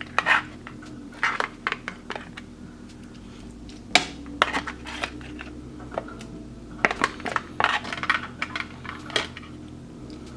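Metal clinks and scrapes of a utensil against a metal cup of hot food, in irregular clusters of sharp ticks.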